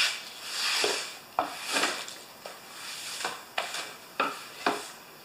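Broom sweeping dried grass clippings across a concrete floor in repeated swishes, with a few sharp knocks in between.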